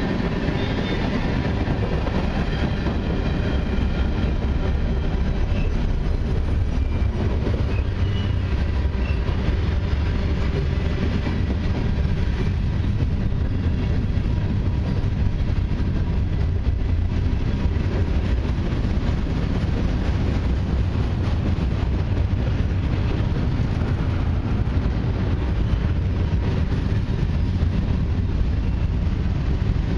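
Long mixed freight train's cars rolling past on steel wheels: a steady, unbroken rumble.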